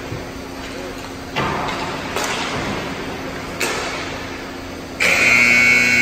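Hockey rink buzzer sounding about five seconds in, a loud steady electric tone that holds. Before it come three sharp bangs over the arena's background noise.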